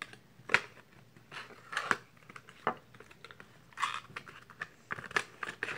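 A metal fidget spinner and its cardboard box being handled as the spinner is fitted back into its packaging: a handful of sharp clicks and taps, with a short rustle about four seconds in.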